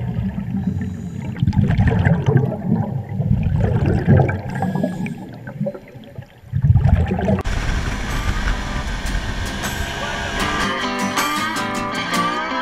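Muffled rushing and bubbling of water picked up with the microphone under the water, a low uneven rumble that drops away briefly about six seconds in. About seven seconds in, music starts: a blues-rock song's guitar intro, the guitar riff coming through clearly near the end.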